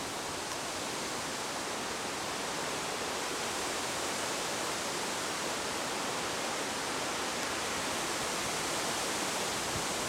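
Steady breeze through reeds and trees: an even rushing hiss with no distinct events.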